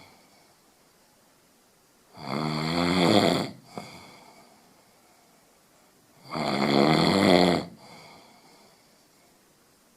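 A person snoring: two long snores about four seconds apart, each lasting over a second.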